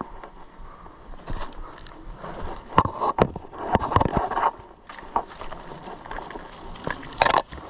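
Footsteps crunching and scraping through dry leaves, twigs and brush on a forest floor, uneven, with a few louder cracks and scuffs around three to four seconds in and again near the end.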